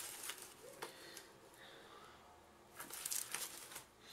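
Faint crinkling and rustling of fabric backed with a silver metallic thermal lining as it is picked up and handled, in two short spells, near the start and about three seconds in.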